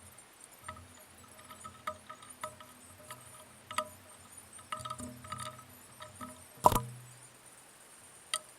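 Irregular metallic clinks and knocks of metal parts and tools being handled while a pillar drill head is taken apart. Each knock is followed by a short ring at the same few pitches, and the loudest knock comes about two-thirds of the way through.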